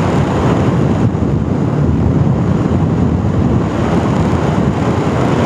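Motorcycle riding at road speed: a steady rush of wind buffeting the microphone over the running engine and tyre noise.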